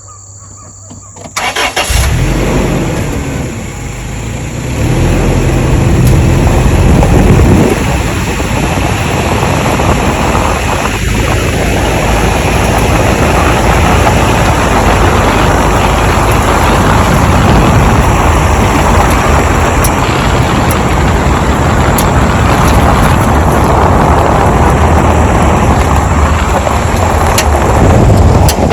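A vehicle engine starts suddenly about a second in, revs up over the next few seconds, then runs steadily and loudly as the vehicle drives.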